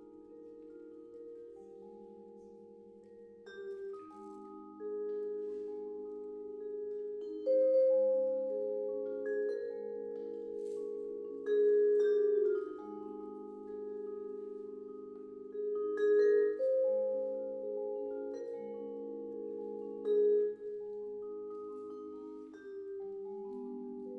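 Vibraphone playing slow chords. A new chord is struck every few seconds and left to ring and overlap with the last.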